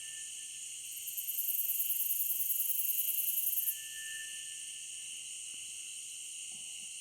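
Evening insect chorus: a steady, many-layered high buzzing and chirring of insects. From about a second in, one insect adds a loud, rapidly pulsing, very high trill that cuts off suddenly near the four-second mark. A faint thin whistled note recurs every four seconds or so.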